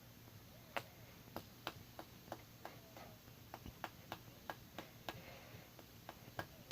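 Faint, irregular clicks and light taps, two or three a second, from a fidget spinner being handled and knocked about during a trick.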